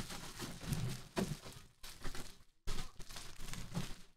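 Foil trading-card pack wrapper being bent and worked open by hand, crinkling and crackling in irregular bursts. The sound cuts out completely for a moment about two and a half seconds in.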